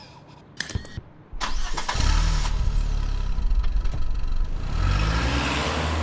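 A few sharp clicks, then a car engine cranks, catches and runs, its pitch rising as it revs near the end.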